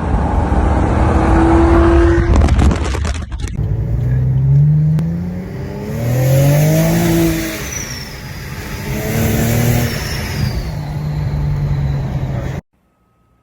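Car engine revving up and down several times, its pitch rising and falling, with a few high squeals. The sound cuts off suddenly near the end.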